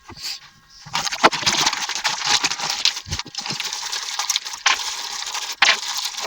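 Small metal pieces clinking and rattling, with rustling handling noise and many short clicks.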